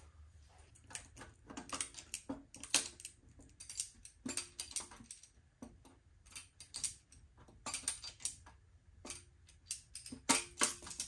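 Small wrench clicking and scraping against the nuts and the painted metal coin door of a Vendo 39 Coke machine while the coin entry bezel's nuts are tightened. The clicks and light metallic taps are irregular, coming in small clusters, some with a brief ring.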